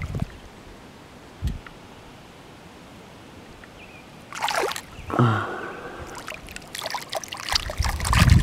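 Hands splashing and swishing in shallow lake water at the bank. Two soft thumps come in the first couple of seconds, then splashing starts about halfway through and grows busier near the end.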